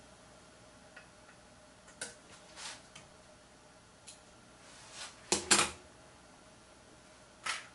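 Scattered metal clicks and clinks from hands and a tool working on a rifle's steel action and barrel, with a louder cluster of knocks about five and a half seconds in and one more near the end.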